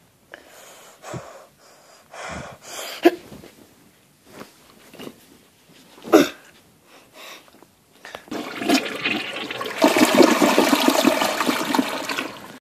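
A few scattered knocks and bumps, then from about eight seconds in a toilet flushing, the rush of water growing louder about two seconds later.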